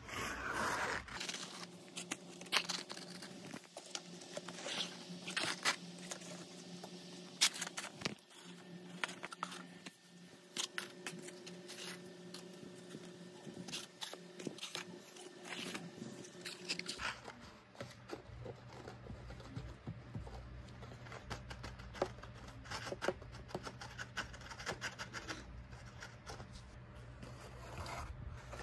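Paper bus models and cardboard being handled and slid about on a quilted bedspread: scattered scraping, rustling and light taps throughout.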